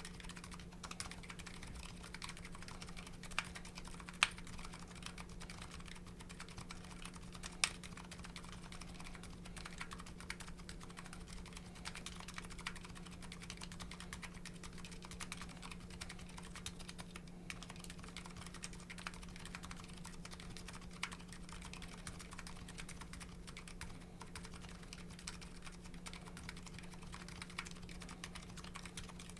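Typing on a Nuxros Kraze custom keyboard with MetaKeebs MetaPulse electrocapacitive switches and GMK Hennessey keycaps: a continuous run of keystrokes, with a few sharper, louder clacks around three to four and seven seconds in. A steady low hum sits underneath.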